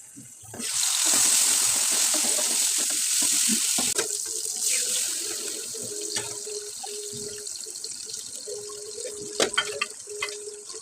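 Tap water running into a sink, starting just under a second in, strongest for about three seconds and then running lighter, with a few sharp knocks near the end.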